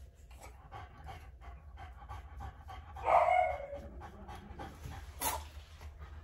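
French Bulldog panting, with a louder short sound about three seconds in and a sharp one a little after five seconds.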